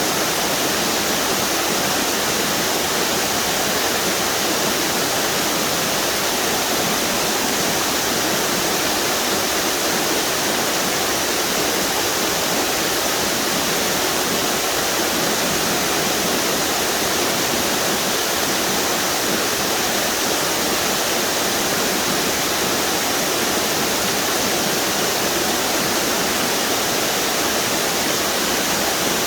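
River water pouring over a string of small waterfalls, a steady rushing roar with no change throughout.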